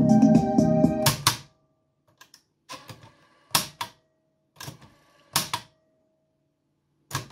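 Music playing back from a 1980 Nordmende CD 1000 cassette deck stops abruptly about a second in with a loud clunk of its piano-key transport buttons. Then two more loud clunks and several lighter clicks as the keys are pressed, and the music starts again at the very end.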